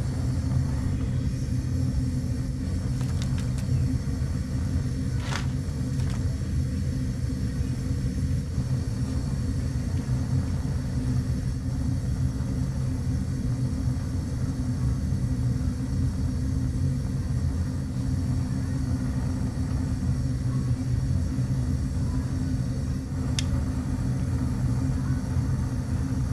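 Pot of fish cake soup boiling on a gas burner, giving a steady low rumble, with a couple of faint utensil clinks against the pot.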